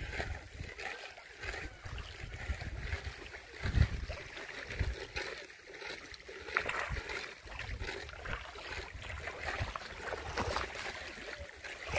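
Wind rumbling on the microphone over lapping, splashing shallow lake water as a man wades, with a stronger gust or knock about four seconds in.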